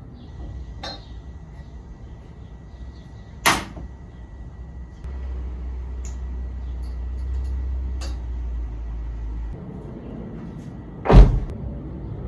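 Two sharp knocks, one about three and a half seconds in and a louder one near the end. A low steady hum runs through the middle stretch.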